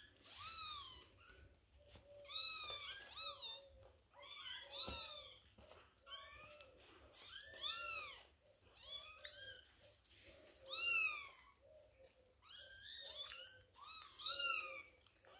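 Several Maine Coon kittens mewing over and over. The calls are short, high-pitched, rising and falling, and come in clusters of overlapping mews a few each second.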